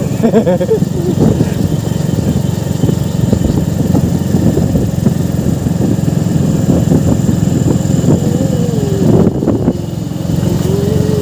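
Single-cylinder engine of a Hero Glamour 125 motorcycle running steadily while riding along a wet road, with a wavering pitch that rises and falls in the last few seconds.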